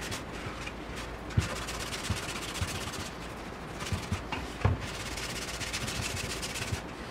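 Gum-rubber sanding-belt cleaning block rubbed back and forth over a wooden drum shell, a scrubbing sound as it erases pencil marks, with a few soft knocks.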